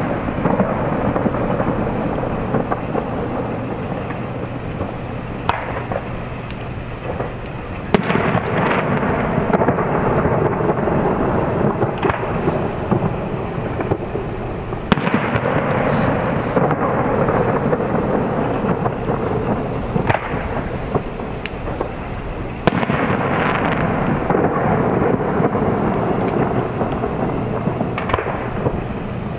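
Aerial firework shells bursting in a display: a sharp report every few seconds over a steady wash of overlapping bursts.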